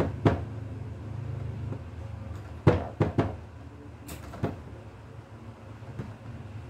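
A few sharp knocks and clatters: two at the start, a cluster of three about three seconds in and one more a little later, over a steady low hum.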